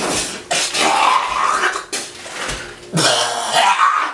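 A man gagging, coughing and sputtering out a foaming mouthful of baking soda and vinegar, in two loud retching fits, one about half a second in and another about three seconds in.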